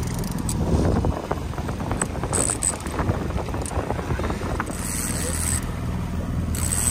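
Trolling reel cranked steadily to wind in a hooked fish, its gears clicking rapidly, over the steady low hum of the boat's engine.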